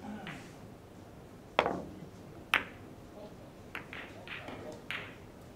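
A billiard shot on a carom table: a sharp cue-and-ball click about one and a half seconds in, a second loud ball-on-ball click about a second later, then three or four fainter clicks as the balls knock together and come to rest.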